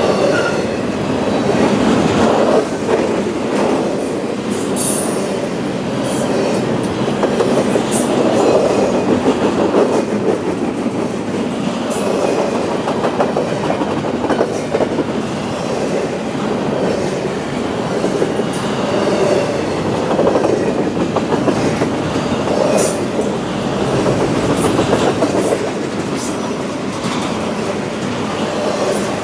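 Double-stack intermodal container train rolling past: a steady rumble of well-car wheels on the rails with clickety-clack over the joints, and a few brief high wheel squeals.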